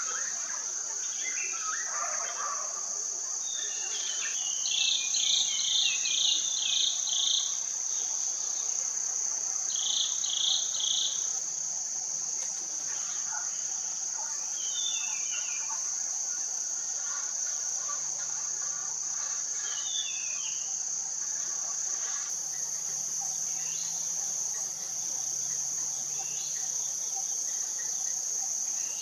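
A steady high-pitched insect drone from crickets or cicadas. Over it come short runs of quick high bird chirps, about seven in a row around five seconds in and three more a few seconds later, plus a few small falling chirps.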